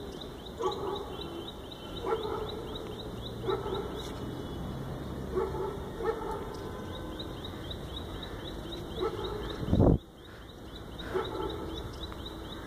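A dog barking about seven times at irregular intervals, over a steady run of rapid high chirps. Shortly before ten seconds in there is a brief, loud, low thump, the loudest sound of the stretch.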